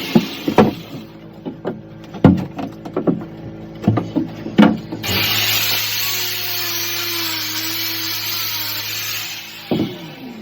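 Woodworking in a boat's wooden interior: a run of sharp, irregular knocks on wood in the first half, then a power tool running steadily for about four seconds, and a couple more knocks near the end.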